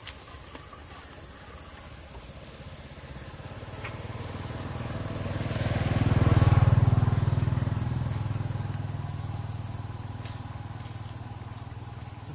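A motor vehicle passing along the road: its engine hum grows louder, peaks a little past halfway, then fades away.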